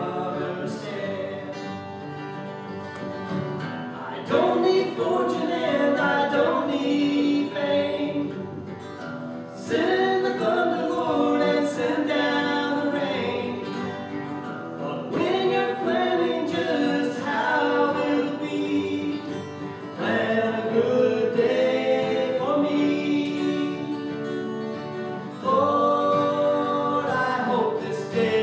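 A song sung to two acoustic guitars. The vocal phrases come in loud about every five seconds over the steady guitar accompaniment.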